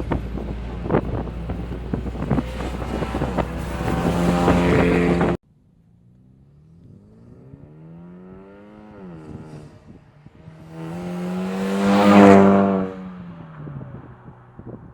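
2013 Hyundai Veloster Turbo's turbocharged four-cylinder, through a Solo Performance exhaust, running under hard acceleration. The first part is loud and rough, with wind buffeting and clicks, and cuts off abruptly about five seconds in. The car is then heard revving up in the distance and making a fly-by run, loudest about twelve seconds in and dropping in pitch as it passes and fades.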